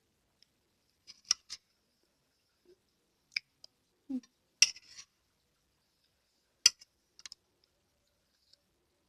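Eating sounds from a mukbang: a few short, sharp clicks and smacks at uneven intervals, the loudest about halfway through.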